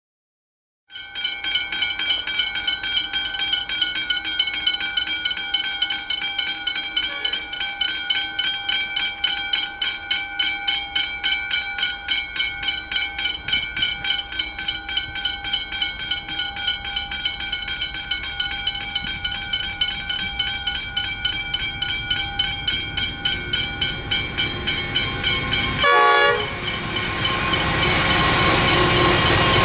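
Level crossing warning bell ringing with rapid, even strokes. Near the end a short horn blast sounds, and the noise of approaching NR class diesel locomotives grows louder.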